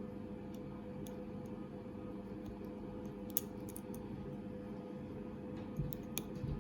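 Washing machine running with a steady low hum. Faint small metallic clicks come several times, bunched near the middle and near the end, as a lock pick and tension wrench work the pins inside a padlock.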